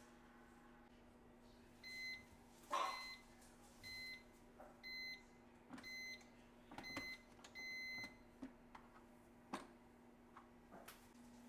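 Panasonic bread maker's control panel beeping: a string of short, high electronic beeps about once a second, the last one longer. A knock sounds near the start, and a few clicks come near the end as the lid is unlatched and opened.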